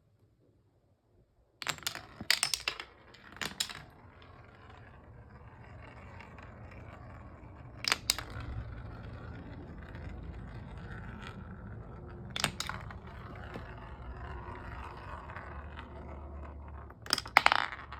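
Marbles rolling along a wooden marble run track with a steady low rumble, and sharp clacks of marbles striking the track and each other in clusters, the loudest near the start and again near the end.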